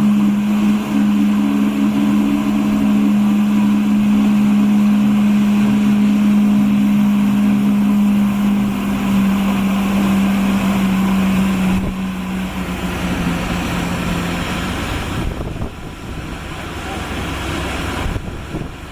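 The SS Normandie's deep steam whistle blowing one long, steady blast that fades out about twelve seconds in. Wind and water noise follow.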